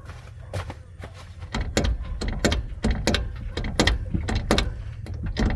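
Repeated sharp clunks from the rear suspension of a Suzuki Vitara as the body is rocked side to side, about three or four a second, starting about a second and a half in. The owner traces the knocking to a loose anti-sway bar.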